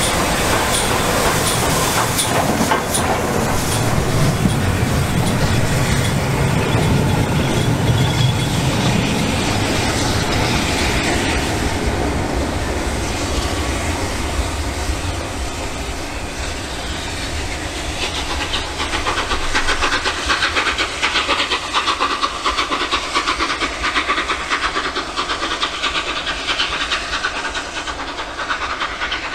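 LNER A3 steam locomotive Flying Scotsman, a three-cylinder Pacific, with its support coach rumbling and clattering over the rail joints as it coasts past. From about 18 seconds in, a rhythmic chuffing exhaust takes over as the regulator is opened and the locomotive pulls away, echoing and fading into the distance.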